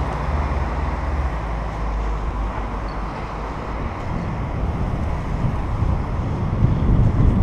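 Wind buffeting the microphone of a bicycle-mounted camera while riding, with steady low road rumble. A car's low engine hum fades out about a second in, and the buffeting grows heavier near the end.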